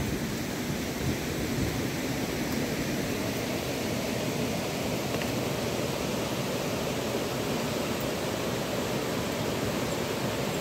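Creek water rushing over a rocky riffle: a steady, even rush.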